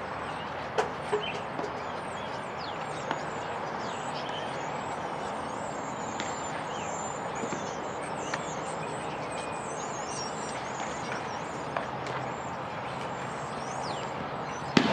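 Small birds chirping over and over in short, thin, high calls above a steady outdoor hiss, with a few sharp knocks, two of them close together about a second in.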